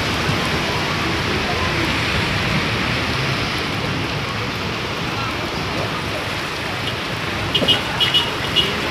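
Heavy rain pouring down in a steady, dense hiss. A few sharp taps or clicks come near the end.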